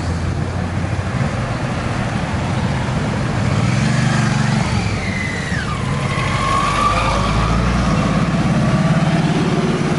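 Escort motorcycles and a lead car passing slowly with their engines running. One engine revs up and settles again about four seconds in. A thin tone glides downward and levels off around the middle.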